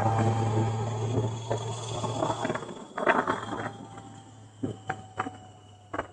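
Motorcycle running, heard as a steady low drone that fades away about two and a half seconds in, followed by a few short clicks.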